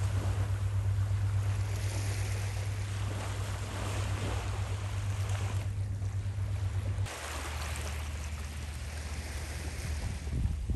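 Small sea waves washing and swelling onto a sandy beach, over a steady low rumble of wind on the microphone that drops abruptly about seven seconds in.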